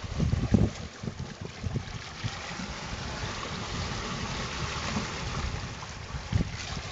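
Wind gusting on the microphone over a steady rush of water along a sailboat's hull as it moves under sail.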